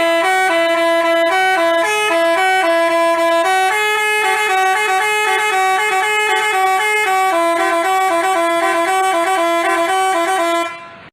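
A telolet basuri musical bus horn plays a quick tune, its note stepping up and down every fraction of a second. It stops suddenly near the end.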